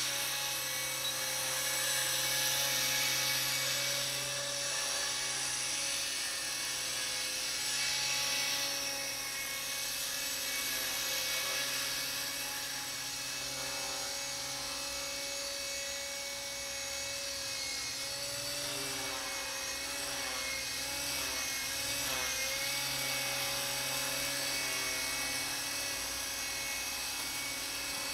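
Align T-Rex 250 electric RC helicopter hovering: the steady high-pitched whine of its motor and drivetrain with the rotor buzz, the pitch wavering briefly about two-thirds of the way in.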